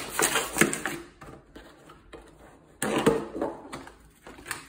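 Thin clear plastic of a rotisserie chicken clamshell container crackling and clicking as the label band is pulled off and the lid is pried open. A louder, sudden crackle comes about three seconds in as the lid comes free.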